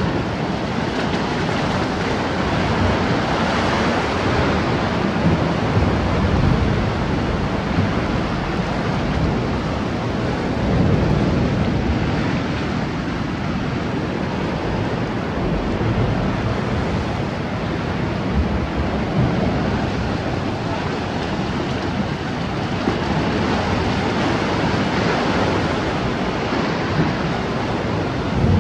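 Sea surf washing and breaking against rocky ledges in a steady rush, with wind buffeting the microphone.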